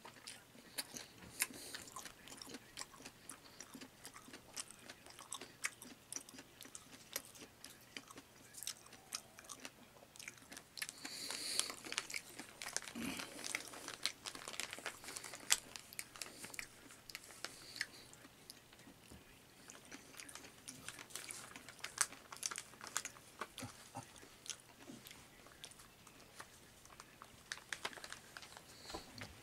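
Close-up chewing and biting, with many small sharp mouth clicks scattered irregularly throughout.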